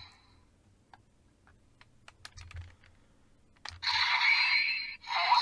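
Sparse plastic clicks from handling a toy henshin belt and its buckle. About three and a half seconds in, the belt's small speaker starts playing a loud, tinny electronic sound.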